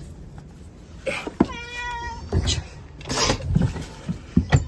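A cat meowing once, a steady call of under a second, among several short knocks and thumps.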